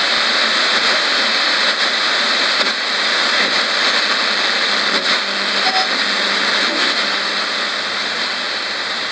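Radio static hissing steadily from a tabletop radio's speaker as its tuning dial is swept slowly by hand between stations, with a few faint, brief fragments of tone and clicks breaking through around the middle.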